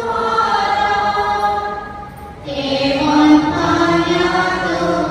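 Voices singing a slow hymn in long held notes, with a short break about two seconds in before a new, lower phrase begins.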